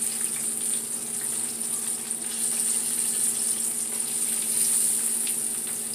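Breaded catfish nuggets sizzling steadily in hot cooking oil in a skillet.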